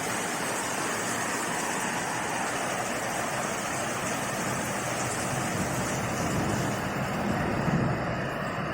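Heavy rain falling in a steady hiss. A low rumble swells up about three-quarters of the way through.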